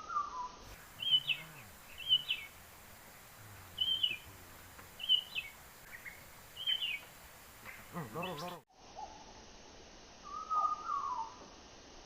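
Small songbird, the Sumatran ciblek gunung (mountain prinia), giving five short high chirps about a second apart, each flicking down in pitch at its end. A brief pitched cry follows near the end, then a lower two-note call.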